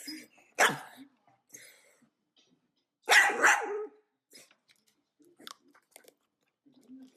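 Dachshund barking: one short, sharp bark about half a second in, then a longer bark in two quick parts about three seconds in.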